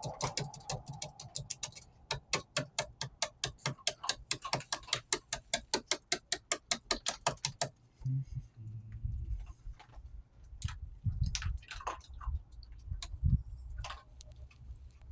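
Dog chewing dry food, a rapid run of crunching clicks about five a second, then slower, irregular crunches from about eight seconds in.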